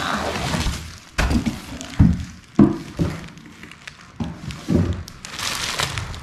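Clear plastic wrapping crinkling around a bag as it is lifted out of a cardboard box, with about six dull thumps from the handling.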